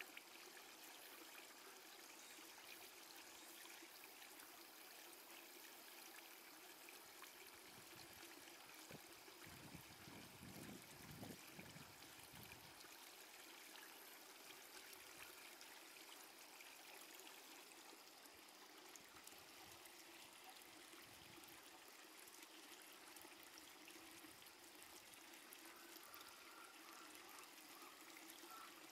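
Near silence: a faint steady hiss, with a few soft low rumbles around the middle.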